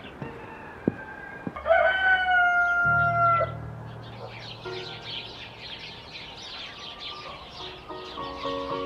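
A rooster crows once, a long call starting about two seconds in that holds its pitch and drops off at the end. Small birds then chirp steadily through the rest.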